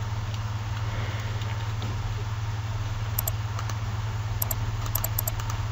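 Steady low electrical hum from the recording setup, with a few sharp computer mouse clicks in the second half.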